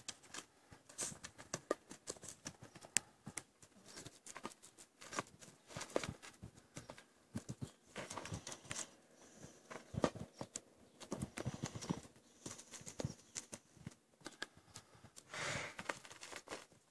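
A donkey foal's hooves stepping and scuffing on gravelly dirt while it noses and pushes a ball along the ground: irregular soft knocks and scrapes, with busier spells near the middle and toward the end.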